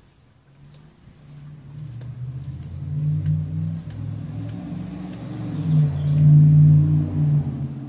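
A car's engine passing on the street, a low rumble that builds over several seconds, is loudest near the end and then fades away.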